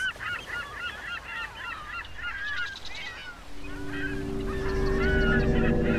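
A flock of geese honking, many short calls overlapping. A little past halfway a steady low drone with a rumble rises in beneath the honking.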